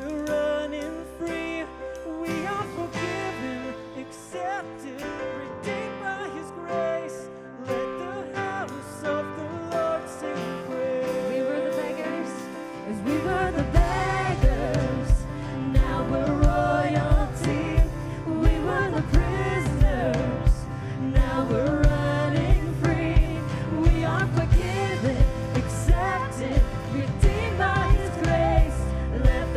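Live worship band playing a song with sung vocals over acoustic guitar and keyboard. About halfway through, the drums and bass guitar come in with a steady beat and the music gets fuller and louder.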